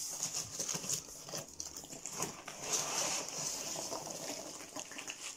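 Loose foam packing peanuts rustling and spilling as a hand rummages through them in a cardboard box: a dense, irregular run of small light clicks and scratches.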